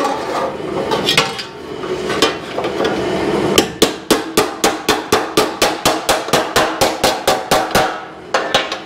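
A hand hammer striking a sheet-metal patch panel laid over a wooden edge, bending a lip into it. The first few blows are spaced unevenly while the panel rings. From about three and a half seconds in, the blows come fast and even, about four or five a second, and they stop just before the end.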